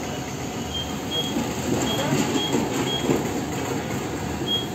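Wheel balancing machine's console giving about six short, high electronic beeps as keys are pressed to enter rim parameters, over steady workshop background noise.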